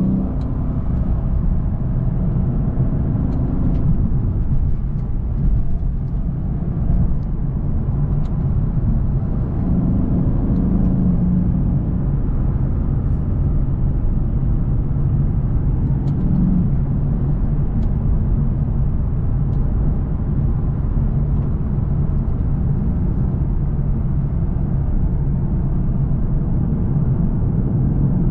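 Lexus RC F Track Edition's 5.0-litre V8 cruising at a fairly steady speed: a continuous low engine drone mixed with tyre and road noise, swelling slightly now and then with light throttle changes.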